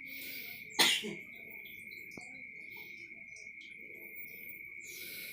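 A woman coughs once, a short harsh cough about a second in, from a cold she woke up with. A steady thin high-pitched whine runs underneath.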